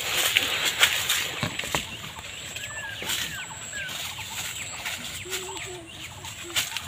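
Guava branches and leaves rustling and crackling as people push through dense orchard foliage, with many short sharp snaps and brushes. A few brief chirping calls in the middle and short lower calls near the end come from animals in the background.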